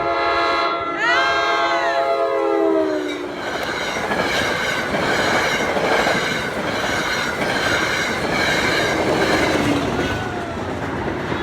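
Passing train: the locomotive's horn sounds a multi-note chord that drops in pitch as it goes by, ending about three and a half seconds in, then the steady rumble and clatter of the rail cars rolling past.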